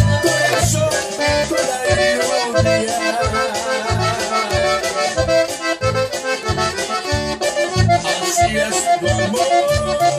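A diatonic button accordion playing a lively conjunto tejano melody, with quick runs of notes over a steady low beat about twice a second.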